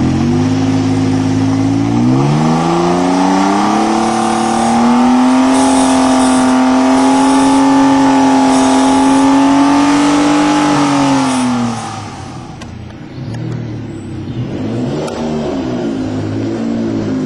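Jaguar XJ220's twin-turbo 3.5-litre V6 through a QuickSilver stainless sports exhaust, revved up from idle in two steps and held steady at high revs for several seconds, then let drop. After that it runs quieter, the revs rising and falling as the car drives off.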